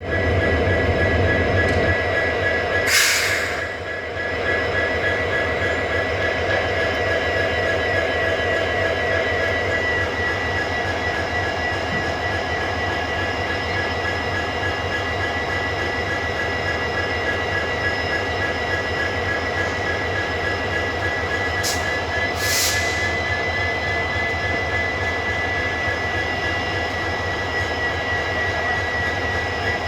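WDP4D diesel-electric locomotive's engine running with a low, steady hum and a steady high whine above it. There are two brief hisses, about three seconds in and again about twenty-two seconds in.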